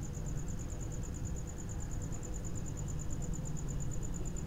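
A high, thin insect trill, like a cricket, pulsing about eight times a second, over a low rumble of handling noise.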